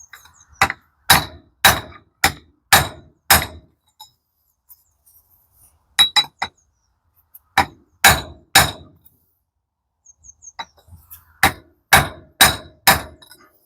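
Hammer blows on a steel pipe used as a drift, tapping a gear and synchronizer onto a gearbox shaft of a Toyota MMT robotised manual transmission. The ringing metal strikes come about two a second, in four runs with short pauses between.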